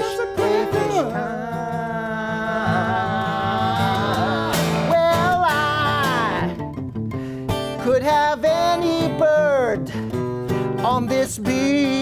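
Acoustic guitar strummed while men sing, with one long wavering held note about two seconds in that slides down at its end.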